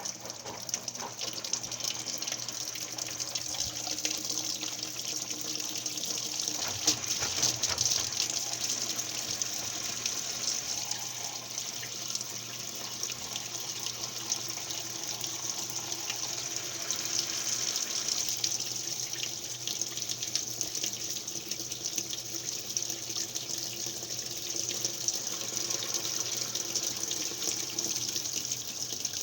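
Steady flow of running water, with a faint low hum underneath.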